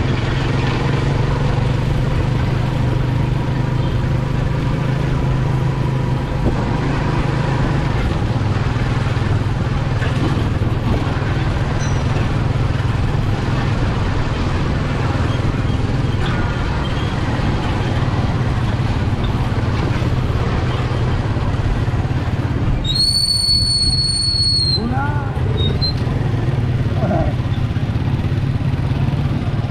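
Motorcycle engine running steadily, heard from its attached sidecar while riding along a street. A brief high, steady whistle-like tone sounds for about two seconds a little past two-thirds of the way through.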